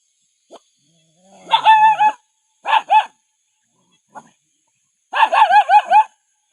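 Puppy barking in high-pitched yaps: one longer yap, two quick ones, then a fast run of about six near the end.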